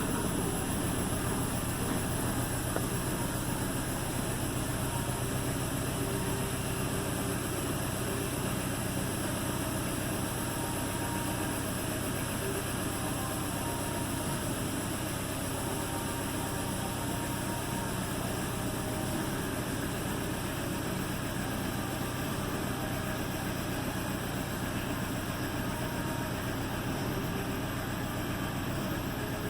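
2008 Toyota Tacoma engine idling on a cold start, running with a misfire. It is a little louder over the first few seconds, then steady.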